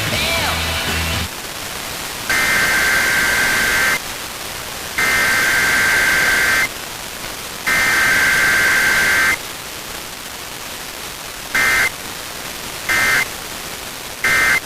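Emergency Alert System SAME data tones over radio static hiss. Three long two-tone digital header bursts, each about one and a half seconds, are followed by three short end-of-message bursts. With no attention tone between them, this is the header-and-EOM pattern of a required weekly test.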